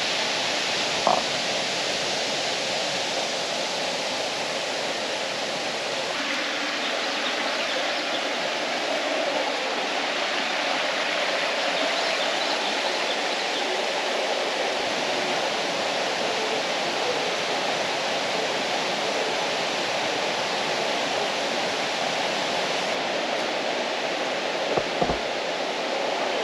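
Steady rush of a waterfall, with a brief knock about a second in and two more near the end.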